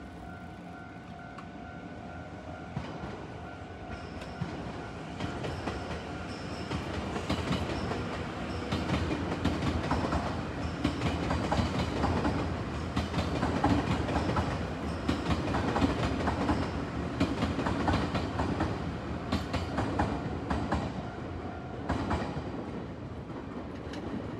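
Electric commuter train passing over a level crossing, its wheels clattering over the rail joints, loudest in the middle and fading near the end. A level-crossing warning bell rings at the start, is drowned out as the train goes by, and is heard again near the end.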